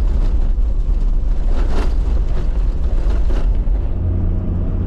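Toyota LandCruiser Troop Carrier driving, a steady low rumble of engine and road noise heard inside the cab; about four seconds in, a steadier engine hum comes in.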